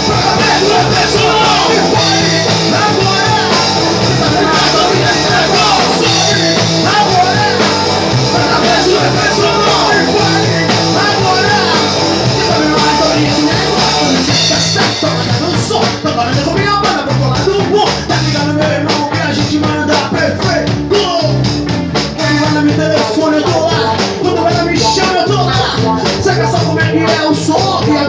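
Rock band playing live: electric guitar, bass guitar and drum kit. About halfway through the highest treble drops out and the drum hits stand out more.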